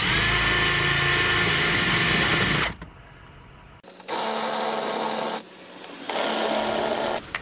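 Electric drill drilling out the aluminium rivets that hold a factory car-door speaker. It runs in three goes: a long run that stops near three seconds in, then two shorter runs about a second apart.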